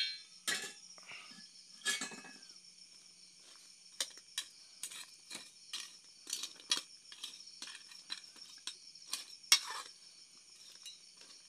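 A cooking spoon clinking and scraping against a metal pan and the crab shells as seafood is stirred: a string of sharp knocks, the loudest at the very start and about nine and a half seconds in. A steady shrill chorus of crickets sounds behind.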